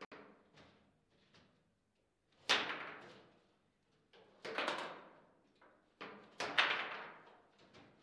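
Table football in play: irregular sharp knocks as the ball is struck by the plastic figures on the rods and bangs against the table. The loudest knocks come about two and a half, four and a half and six and a half seconds in.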